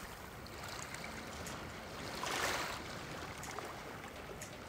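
Small sea waves washing in over the sand and swirling around a rock at the water's edge, one wash swelling louder about two and a half seconds in.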